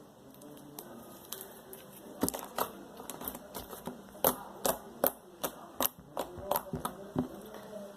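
Slime being worked by hand, giving off sharp, irregular pops and clicks that start about two seconds in.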